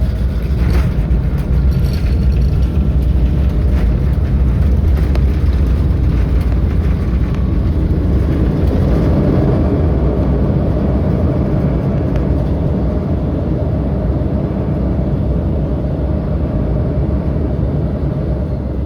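Loud, steady rumble inside the cabin of an Embraer 175 rolling on the ground after landing: engine and wheel noise, easing slightly in the second half.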